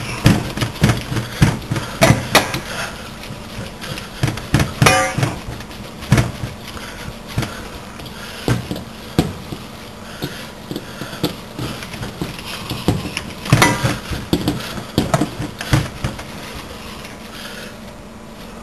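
Hand kneading a ground beef and pork hamburger mixture in a stainless steel bowl: irregular wet squelches and slaps of the meat, with knocks of the hand against the bowl, louder about five and thirteen seconds in.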